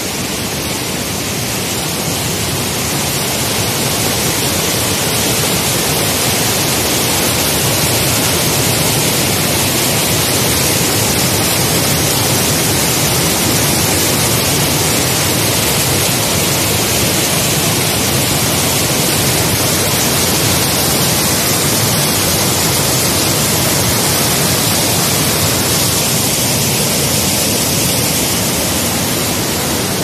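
Mountain stream rushing and cascading over boulders: a loud, steady rush of white water.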